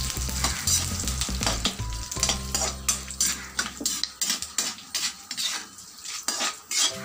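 Perforated metal ladle scraping and stirring around an aluminium kadai in repeated short strokes, while cashews, chana dal, urad dal and curry leaves sizzle in hot oil: the tempering being fried for rava khichdi.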